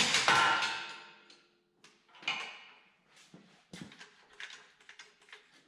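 Metal clanking and ringing from steel tools and parts being knocked while working on a tractor engine: a loud ringing clank at the start, a second about two seconds in, then lighter knocks and rattles.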